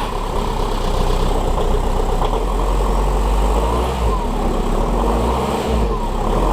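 Audi A3 8L's 1.9 TDI four-cylinder turbodiesel running steadily, heard through a catless downpipe exhaust.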